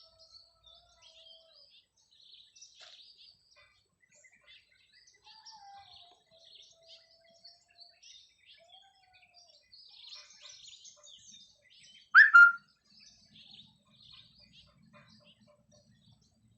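Birds chirping and twittering, with a few faint whistled notes that slide down in pitch. About twelve seconds in comes a loud, brief, sharp sound in two quick parts.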